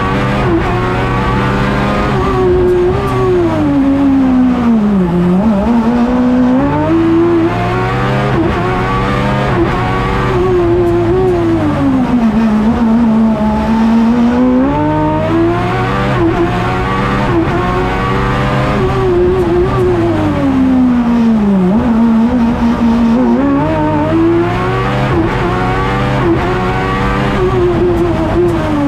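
Suzuki GSX-R1000 inline-four motorcycle engine in a Fiat X1/9 race car, heard from inside the cockpit. It revs up hard and falls away several times over as the car accelerates, brakes and shifts between second and third gear.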